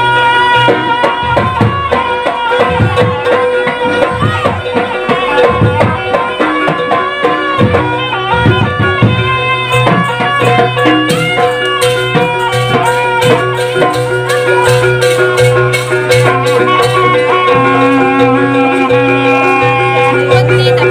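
Live jaranan music from a gamelan-style ensemble: fast hand-drum strokes and percussion under sustained melodic tones.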